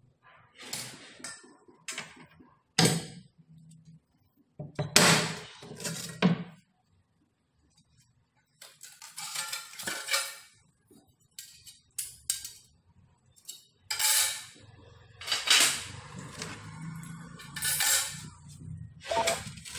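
Polished granite slab knocking and scraping against its wooden frame as it is tipped up and handled, a series of irregular hard clacks and short scrapes with quiet gaps between.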